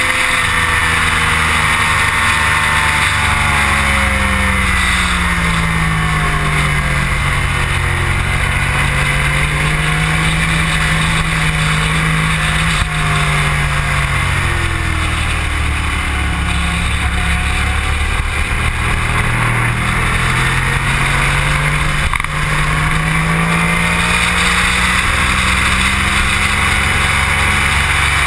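Motorcycle engine running at speed on a race track, its pitch slowly falling, rising and falling again with the throttle through the corners, over a steady rush of wind noise.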